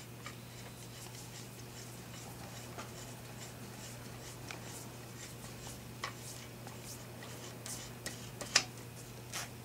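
Faint, irregular metallic clicks and ticks as a sound suppressor is screwed by hand onto the threaded barrel of a DRD Paratus .308 rifle, over a steady low hum. The loudest click comes near the end.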